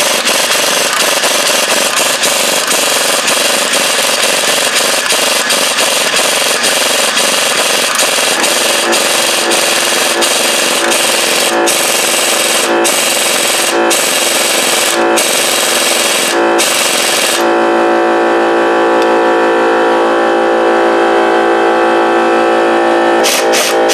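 Air impact wrench hammering on seized, salt-corroded cylinder head bolts in the aluminium head of a Rotax 587 engine, in long bursts with short breaks. About two-thirds in the hammering stops and the tool spins with a steady whine as a bolt turns out, then stops with a few clicks near the end.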